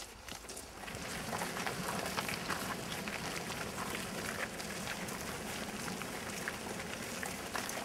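Footsteps of a large group walking together on a paved path, a steady shuffle with scattered sharper steps, getting louder about a second in.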